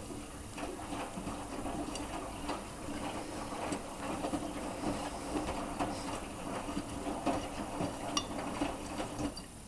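Miele washing machine drum turning a full load of cottons in its first rinse: wet laundry and water sloshing, with scattered light clinks.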